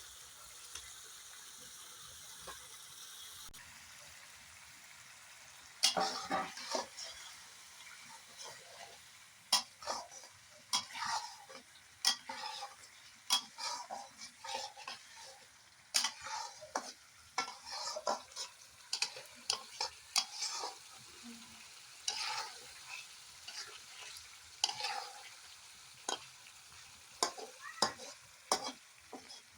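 Boiled eggs being stirred into a thick fried masala in a pan. A spatula scrapes and knocks against the pan in many irregular strokes from about six seconds in, over a low sizzle of frying.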